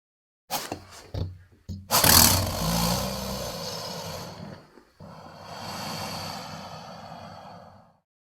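Made-up Dimetrodon creature sound effect: a few short, sharp sounds, then a loud roar that fades over a couple of seconds, followed by a second, quieter drawn-out growl that cuts off abruptly.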